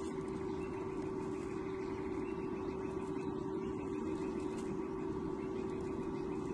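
Steady low hum with one constant tone over an even rumbling hiss: the background noise of a nest camera's microphone.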